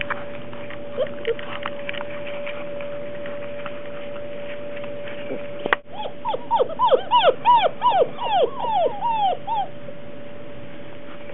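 Puppies whimpering and yipping: a few short cries early on, then a quick run of about fifteen short, high cries that each rise and fall, over a faint steady hum.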